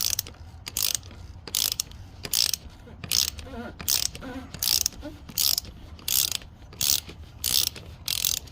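Ratchet wrench on an extension and 24 mm socket, cranked in quick back-and-forth strokes to loosen a truck's oil filter cap. It clicks in short bursts about two to three times a second.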